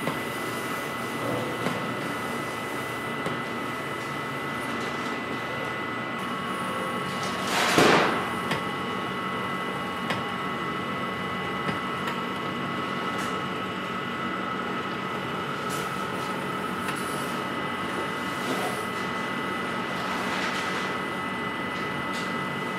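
Baumkuchen spit-roasting machine running, a steady mechanical hum with a few steady high whining tones as the cake turns on its spit. A short, loud rushing burst comes about eight seconds in.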